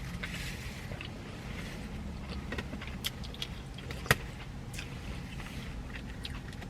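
Faint chewing and small mouth clicks of someone eating, with one sharper click about four seconds in, over a low steady hum.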